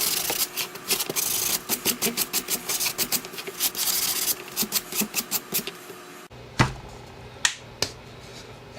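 Hand sanding with a sanding block along the edge of a wooden boomerang: quick back-and-forth rubbing strokes, several a second, rounding over the leading edge. The strokes stop about six seconds in, followed by a few light knocks.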